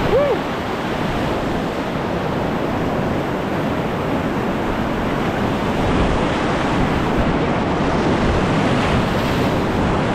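Whitewater rapids of the Soča river rushing and churning around a kayak, close to the water surface: a loud, steady rush that hardly changes. A brief tone rises and falls right at the very start.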